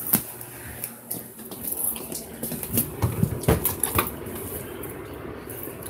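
Handling noise from a handheld phone being carried about: scattered knocks and clicks over a rubbing rustle, with several sharper knocks in a cluster about three to four seconds in.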